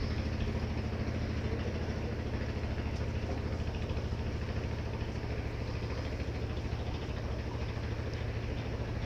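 A small motor running steadily with a low, evenly pulsing hum.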